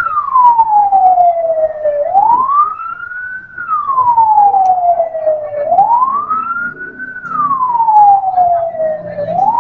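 Fire engine siren wailing: a tone that rises quickly, then falls slowly, repeating about every three and a half seconds.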